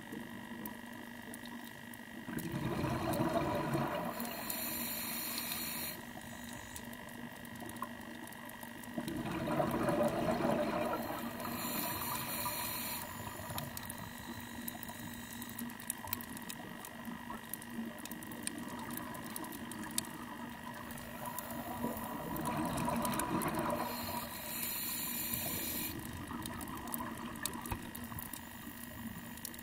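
Scuba diver breathing through a regulator underwater: a few slow breath cycles several seconds apart, each a surge of bubbling followed by a hiss, over a faint steady hum.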